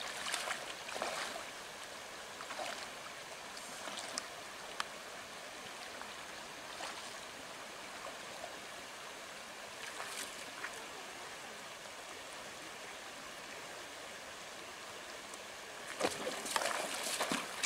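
Shallow mountain creek running over rocks and gravel riffles: a steady rushing of water. Near the end come a few louder splashes of footsteps through the shallows.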